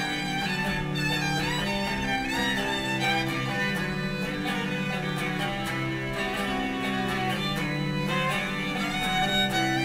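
Live violin and electric guitar playing together: a bowed violin melody with slides and vibrato over an electric guitar accompaniment played through a small amplifier.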